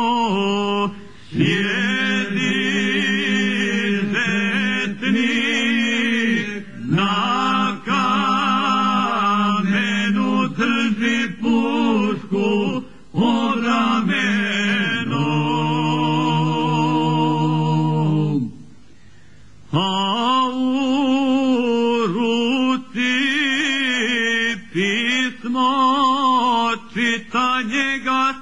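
Male voices singing a Krajina folk song unaccompanied, in the traditional Krajina style, with long held notes that waver. The singing breaks off briefly about two-thirds of the way through before resuming.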